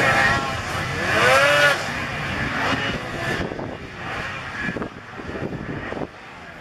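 Racing snowmobile engines revving, the pitch rising and falling with the throttle. The loudest is in the first couple of seconds as a sled runs close by; after that, sleds farther off keep revving more quietly.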